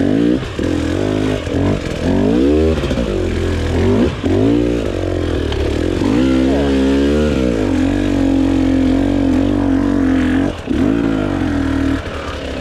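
KTM 300 XC-W two-stroke single-cylinder dirt bike engine being ridden, its revs rising and falling again and again, then holding steady for a few seconds before dropping back near the end.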